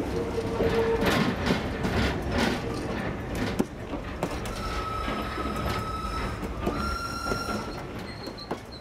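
Train running on rails: a continuous low rumble with repeated knocks of the wheels. A high steady tone with overtones comes in about five seconds in and steps slightly higher near seven seconds.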